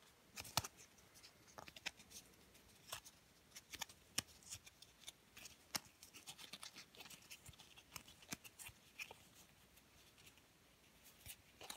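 Faint, irregular clicks and light rustles of stiff board-game cards being sorted and flipped through in the hands.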